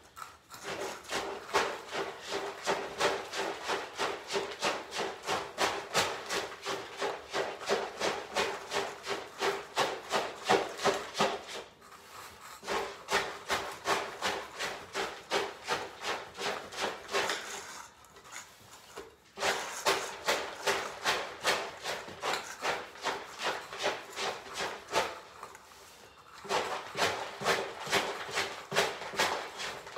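Dry cat kibble being stirred together with canned pâté and gravy cat food, a rhythmic scraping at about three strokes a second that pauses briefly three times.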